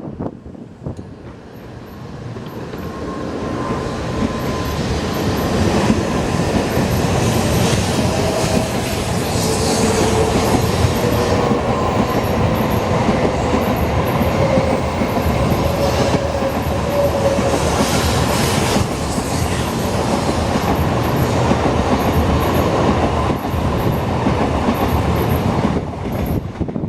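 N700 series Shinkansen train pulling out and accelerating past. Its rumble and rail noise build over the first few seconds and then stay loud, with a faint slowly rising motor whine and a regular series of paired clicks as the cars go by.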